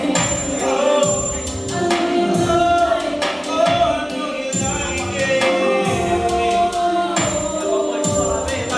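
Slow R&B song performed live: drawn-out sung notes over a backing track with a slow bass beat about once a second.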